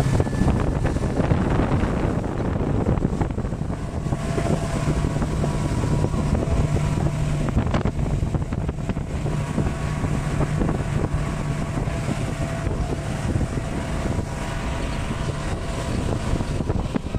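Speedboat's outboard motor running at speed: a steady low engine drone, with wind buffeting the microphone and water rushing past the hull.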